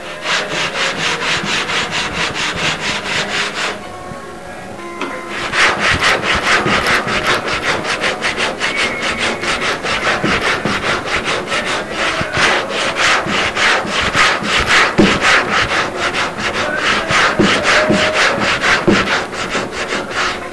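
Quick, even back-and-forth rubbing strokes of hand work on a surface, about four or five a second, breaking off for under two seconds a few seconds in.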